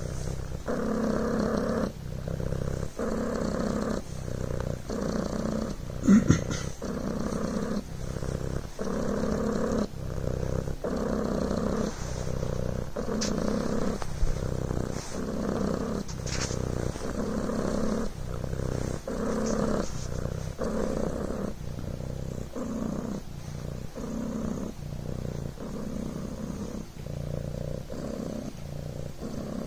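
Devon Rex cat purring steadily, the purr swelling and breaking with each breath roughly once a second. A brief louder noise cuts in about six seconds in.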